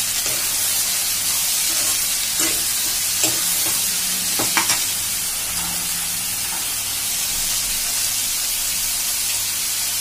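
Chopped vegetables sizzling steadily in hot oil in a deep nonstick kadhai as they are stirred and more are tipped in, with a few light knocks and clatters in the first half.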